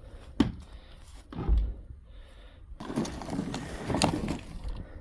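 Wooden boards and blocks being handled: a sharp knock, a heavier thump about a second and a half in, then a run of clattering and scraping as the pieces are fitted under a ramp.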